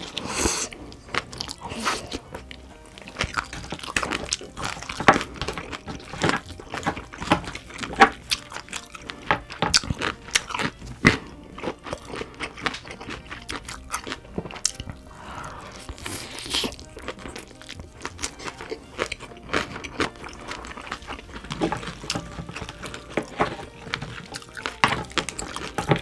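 Crab shell cracking and crunching between the teeth, with chewing: a dense, irregular run of sharp crackles and clicks.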